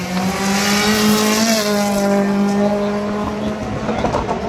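Race car engine held at steady high revs, a strong even note that steps down slightly in pitch about a second and a half in.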